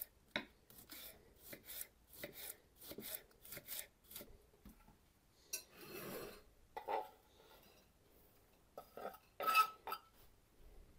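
Kitchen knife chopping a leek on a wooden cutting board in steady strokes, about two or three a second, then the knife scraping the chopped leek off the board into a ceramic dish. Near the end comes a sharp knock with a short ring, the loudest sound.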